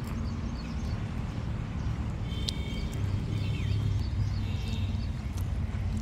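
Truck engine idling with a low, steady, rhythmic rumble, and small birds chirping a few times in the middle.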